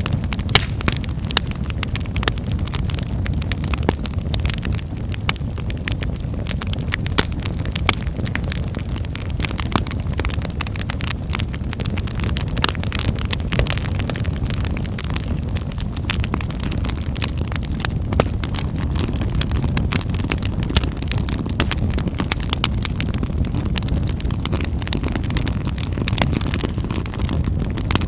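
Wood fire in a fireplace crackling: many sharp, irregular pops and snaps over a steady low rumble of the flames.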